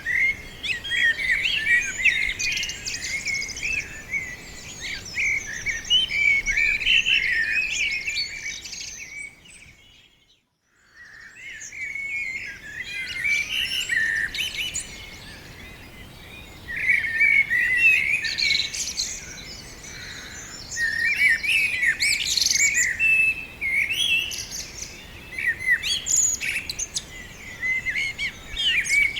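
Several small songbirds chirping and trilling in a busy, overlapping chorus of quick high notes. The chorus drops to near silence for about a second partway through, then picks up again.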